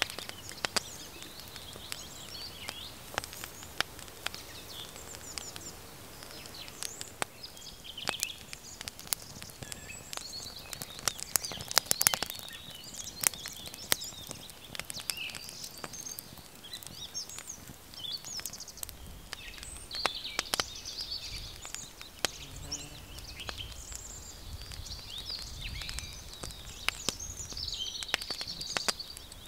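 Small wood fire in a steel fire bowl crackling with many sharp pops, a cluster of louder ones about halfway through, while birds chirp. A low rumble of wind comes in over the second half.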